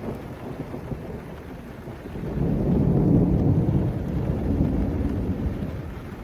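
Rolling thunder rumbling over steady rain, swelling about two seconds in and slowly dying away.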